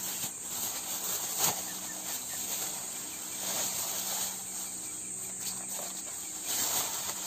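Clear plastic bag rustling, a few sharp taps and a soft patter as coarse salt is sprinkled over the inside of a raw pig carcass. A steady high-pitched insect chirring runs underneath.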